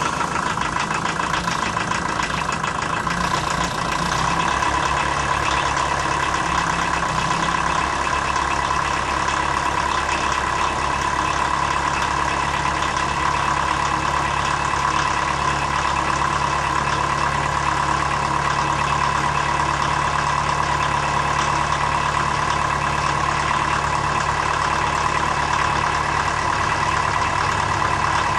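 1981 Volkswagen Rabbit's 1.6-litre four-cylinder diesel engine idling right after a cold start. The idle is rough at first, its pitch wavering for the first several seconds, then it settles into a steadier run.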